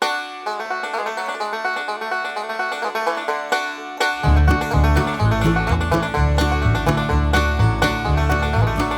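Bluegrass-style background music led by a fast-picked banjo; a bass line comes in about four seconds in.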